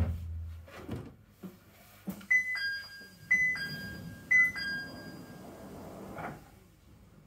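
An electronic two-note chime sounds three times, about a second apart, each time a higher note stepping down to a lower one, like the cable car's door chime at a station stop. A single thud comes at the very start.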